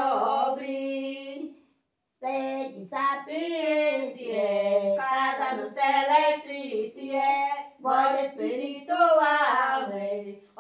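Women's voices singing a Portuguese devotional folk hymn (a bendito) unaccompanied, pausing briefly about two seconds in before the next line.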